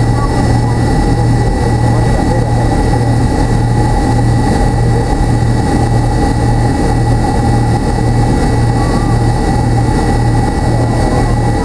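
Cabin noise of a McDonnell Douglas MD-83 taxiing with its tail-mounted Pratt & Whitney JT8D turbofans at idle. A steady low hum carries a slow, even throb about one and a half times a second, with a thin high whine over it.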